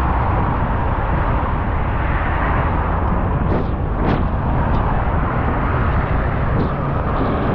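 Steady wind and road noise from a vehicle moving along a wet road, with heavy wind rumble on the microphone and a brief whoosh about halfway through.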